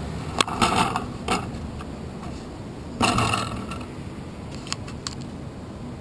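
Bicycle being wheeled and stopped, its frame and parts rattling and clicking. There is a cluster of clicks and rattles about half a second to a second and a half in, and a louder clatter about three seconds in, over steady street background noise.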